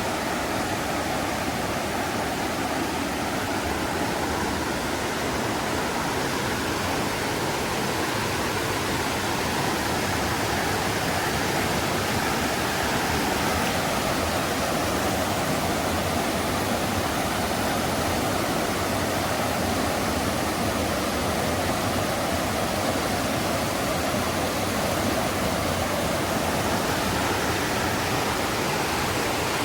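Mountain river flowing: a steady, even rush of water that holds unchanged throughout.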